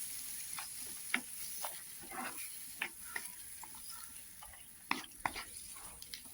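A spoon stirring chopped breadfruit pieces in a pan with freshly added water, clicking and scraping against the pan at irregular moments over a faint sizzle that fades away.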